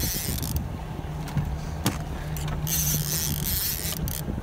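A boat's motor runs with a steady low hum, while a fishing reel is cranked in short spells against a hooked fish, its gears giving a light rattle.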